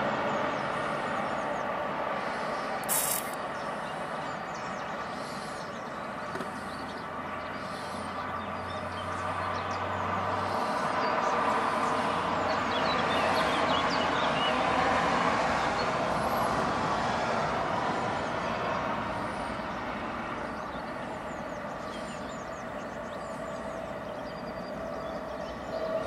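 Steady distant road-traffic rumble that swells for a few seconds midway, as if a vehicle passes. A short sharp noise comes about three seconds in, and faint high chirps run over the top.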